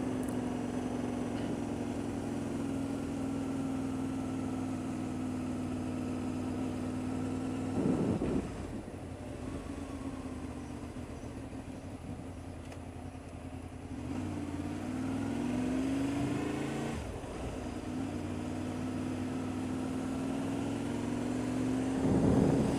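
Honda VFR800's V4 engine running on the road at steady revs. About eight seconds in there is a brief louder rush of noise. After that the engine note falls and quietens, then rises again as the bike accelerates.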